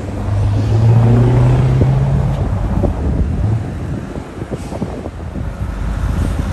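Scania truck's V8 diesel engine pulling away, a low drone that rises slightly in pitch about a second in and fades after about two and a half seconds.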